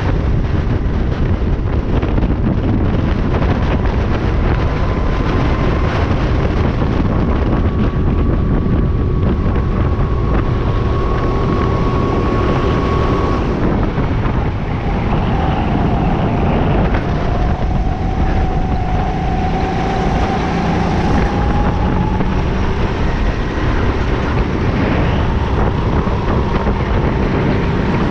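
Go-kart engine running at racing speed, heard from on board with wind buffeting the microphone. Its pitch holds high, dips about halfway through as the kart takes a corner, then climbs again as it accelerates.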